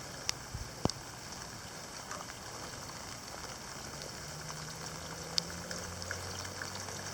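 Steady rain falling, with a few sharp taps of drops hitting close by. A low hum comes in about four seconds in.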